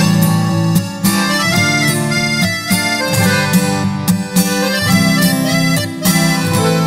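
Harmonica playing a mournful sertanejo melody over a steady strummed guitar accompaniment.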